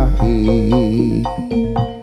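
Live Javanese jaranan gamelan music with singing: a sung line with a wavering vibrato over held metallophone notes and a deep low bass tone that fades out near the end.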